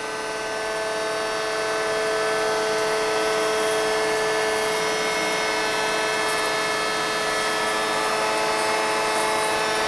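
Marvel Series 25 vertical bandsaw running with its blade turning: a steady machine hum and whine made of several constant tones. It grows louder over the first two seconds or so, in step with the blade speed being changed with the speed lever, then holds steady.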